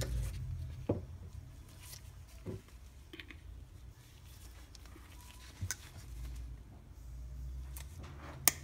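Scattered small clicks and taps of hand-handling at a workbench over a low steady hum, with one sharp click near the end, as the tip of a thin CA glue bottle is cut and readied.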